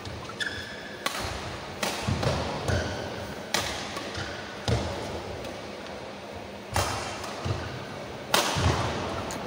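Badminton rally: about seven sharp racket strikes on the shuttlecock, a second or more apart, with the dull thud of players' footwork on the court between them and a short shoe squeak about half a second in.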